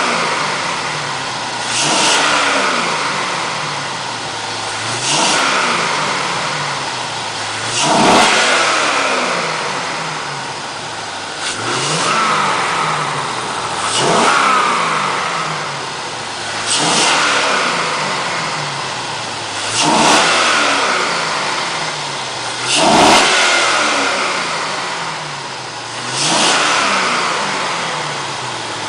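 1998 Corvette's LS1 5.7-litre V8 being revved again and again: a quick throttle blip about every three seconds, each time the revs falling slowly back toward idle.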